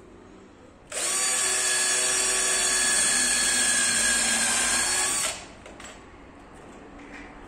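Cordless drill running at steady speed for about four seconds as it bores into the corner joint of two laminated cabinet panels, starting abruptly and winding down at the end.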